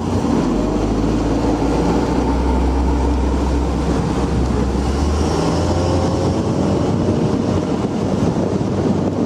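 Motorboat engine running steadily under way, with wind on the microphone and water noise; the engine's low hum shifts about five seconds in.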